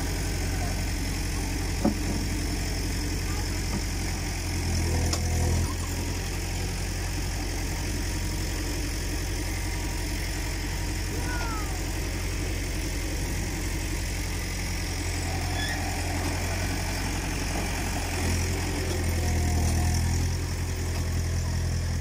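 Tractor engine running steadily as it pulls a potato digger through the soil. It grows louder twice, briefly about five seconds in and for a couple of seconds near the end. A single sharp click comes about two seconds in.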